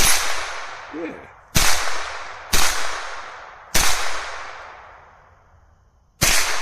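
Five single shots from a .22 LR pistol built on Ruger 10/22 semi-automatic internals, fired at an uneven pace one to two and a half seconds apart. Each sharp crack is followed by a long fading echo.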